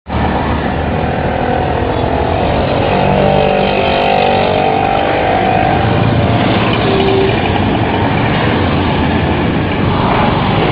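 Dense road traffic: cars and other motor vehicles passing steadily, engines and tyres in a continuous, loud noise, with the engine notes of individual vehicles rising and falling as they go by.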